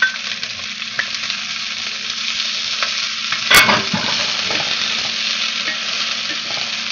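Bell peppers sizzling in hot oil in a stainless steel skillet over medium-high heat, stirred with a wooden spoon that scrapes the pan. One sharp knock about halfway through.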